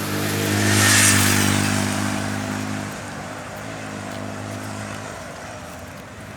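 Motor vehicle engine running with a steady drone, with a louder rush of noise about a second in that fades away, like a vehicle going past.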